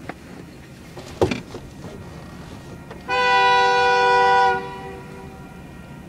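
Union Pacific locomotive horn sounding one blast of about a second and a half, several notes at once, about three seconds in; the horn has an unusual sound that is close to a car horn. About a second in, a sharp knock.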